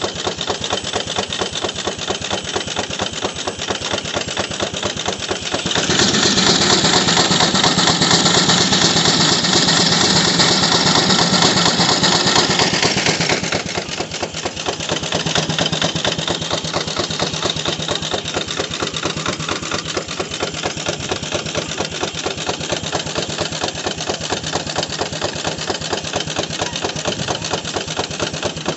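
Gaar-Scott steam traction engine running a sawmill, its exhaust beating fast and evenly. For about seven seconds from six seconds in, a louder hissing rush rises over it: the circular saw cutting through a log.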